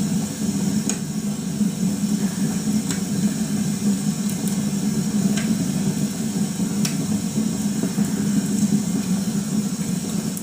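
Wood fire burning on a television broadcast: a steady rushing crackle with a handful of faint, sparse pops.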